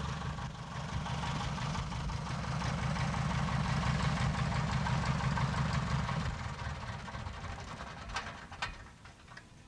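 Light single-engine airplane's piston engine running at low power with the propeller turning, a steady drone that dies down after about six seconds. A few sharp clicks near the end.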